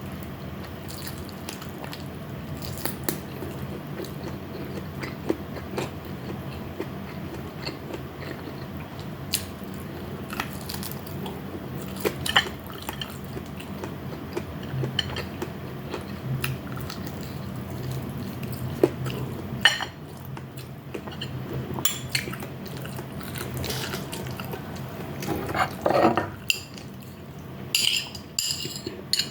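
Mukbang eating sounds: chewing and mouth noises with scattered sharp clicks and clinks of dishes and cutlery, busier near the end, over a faint steady low hum.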